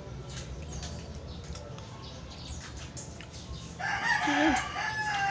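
A rooster crowing once, a loud call about four seconds in lasting a second and a half, over a steady low background hum.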